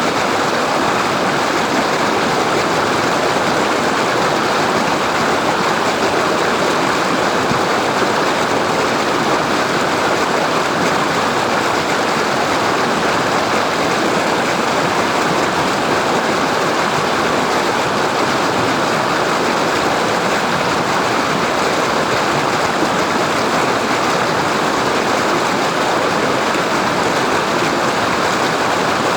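Waterfall: water falling and rushing in a steady, even roar with no breaks.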